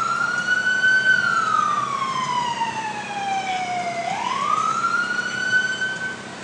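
Fire engine siren wailing: a rise in pitch, a slow fall over about three seconds, then a second rise that holds high and cuts off near the end.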